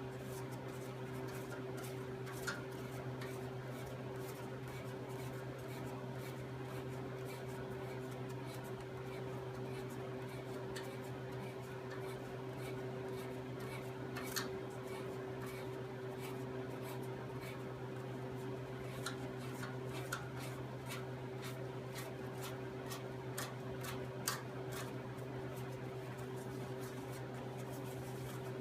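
Scattered light clicks and taps of hand tools on metal parts, with a few sharper ticks, over a steady background hum.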